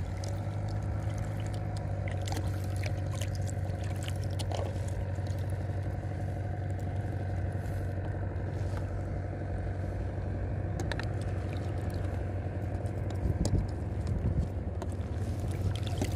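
Steady low engine hum of a boat motor, with scattered small clicks and knocks over it, the loudest a little before the end.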